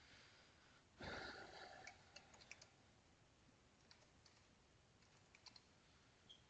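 Faint computer-keyboard typing, scattered keystroke clicks over several seconds, with a brief louder rustle about a second in.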